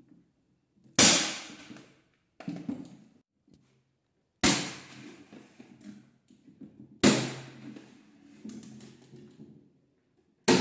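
A corded electric nail gun firing into a plywood panel: five sharp shots spaced a second or more apart, one of them weaker, each ringing briefly in the bare room.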